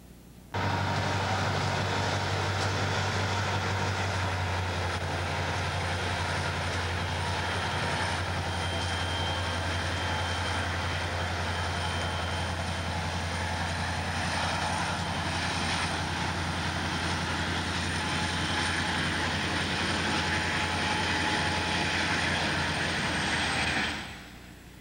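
Diesel-hauled freight train passing close by, the locomotive's engine running with a steady low hum over the rolling noise of the train. The sound starts abruptly about half a second in and cuts off near the end.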